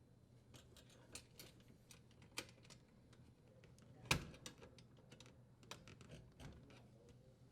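Faint scattered clicks and taps of hands working small parts, with one louder sharp knock about four seconds in: the power wires and plastic strain relief being seated in the dishwasher's junction box bracket and the strain relief nut threaded on.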